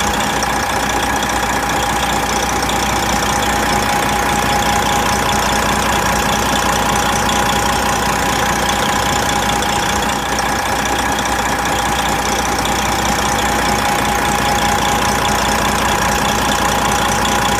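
Big truck's diesel engine idling steadily, with a constant whine over the engine's clatter.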